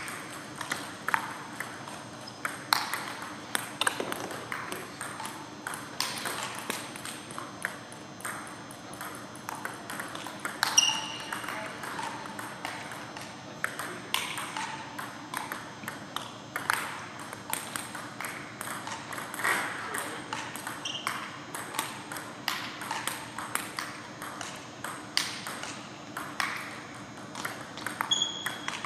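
Table tennis rallies: the ball clicking back and forth off the bats, one faced with inverted rubber and one combining short and long pimpled rubber, and bouncing on the table, in quick irregular strings of sharp clicks with short pauses between points.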